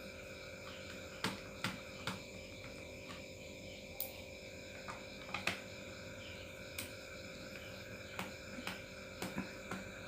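Scattered light clicks and taps of a screwdriver working the screws of a laptop's plastic bottom cover, about a dozen at uneven intervals, over a steady faint hum.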